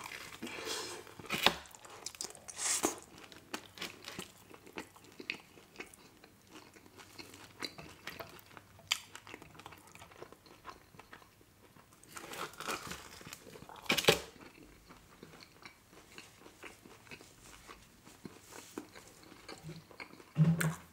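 A person biting into and chewing pepperoni pizza close to the microphone: scattered crunches of crust and chewing, with a louder bite about 14 seconds in.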